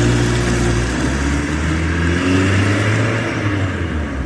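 Sports car engine sound effect, running and revving with its pitch wavering up and down a little; the deep part drops out near the end.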